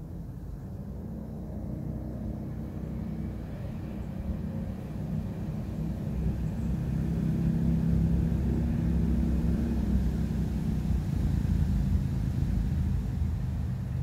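A low engine rumble that grows louder over the first half and then holds steady, over a faint hiss of wind in the trees.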